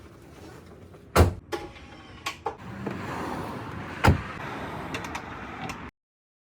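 A few sharp knocks and thuds, the loudest about a second in and about four seconds in, over a steady background hiss, cutting off abruptly near the end.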